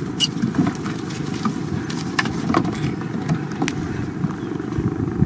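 A motor running steadily as a low rumble, with scattered light clicks and knocks over it.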